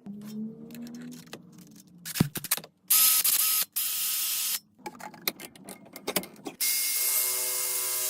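Clicks and knocks of tool handling, then a power tool running in two stretches: a short burst about three seconds in, and from about two-thirds of the way through a steady run with a whine.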